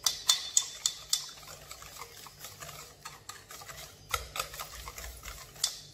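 Wire whisk beating a batter of butter, sugar and egg by hand in a stainless steel bowl, the wires clicking against the bowl about three to four times a second. The strokes soften in the middle and grow sharper again near the end.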